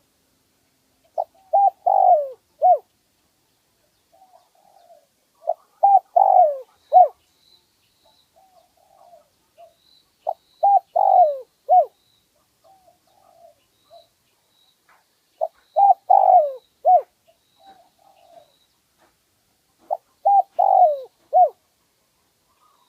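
Spotted dove cooing: five phrases of several short, clear coo notes, one every four to five seconds, with softer notes in between.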